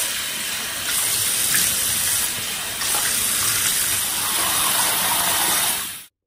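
Water running from a tap into a sink while a face is rinsed under it. The sound is steady, with small changes in level, and cuts off suddenly near the end.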